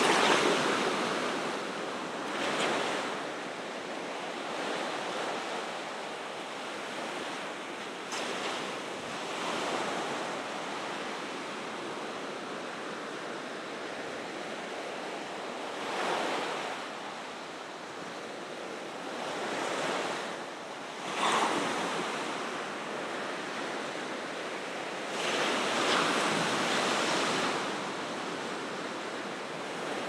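Ocean surf breaking on a shore: a continuous wash of water, swelling as waves break every few seconds. The loudest is a sudden crash about two-thirds of the way through.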